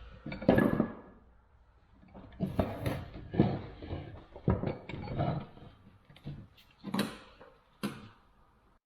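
Irregular clanks, knocks and rattles of metal vise parts and hand tools being handled while a pin holding the spring is refitted into a Record No. 6 bench vise, in several short clusters, cutting off suddenly near the end.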